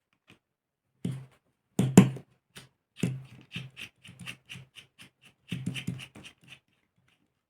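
Parts and tools of a model aircraft engine being handled during disassembly: a run of short clicks and knocks, irregular, the loudest about two seconds in, stopping near the end.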